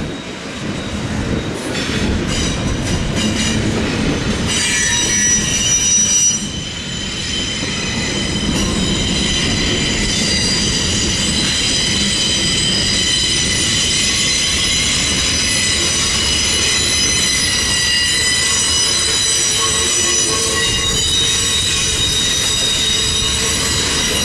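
Freight cars of a slow-moving freight train rolling past, their steel wheels squealing against the rails over a low rumble. A set of high, steady squealing tones sets in about four seconds in and holds.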